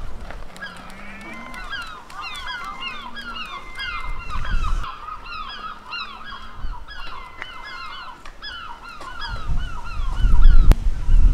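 A flock of birds calling: many short, overlapping calls that rise and fall, several a second, going on without a break. A loud low rumble comes in near the end.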